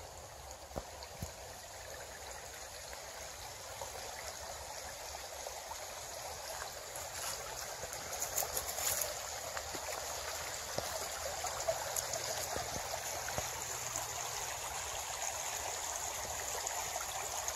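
A shallow, rocky forest creek trickling over stones in a steady wash that grows louder over the first half, with a few faint clicks on top.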